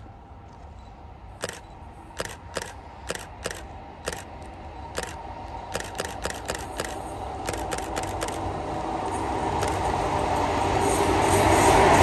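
EF81 electric locomotive hauling the E26 Cassiopeia sleeper train approaching, its running noise growing steadily louder through the second half and loudest at the end as it comes alongside. Earlier, a scattered series of sharp camera shutter clicks.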